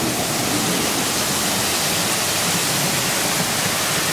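Torrential rain with floodwater rushing down a street: a steady, even hiss.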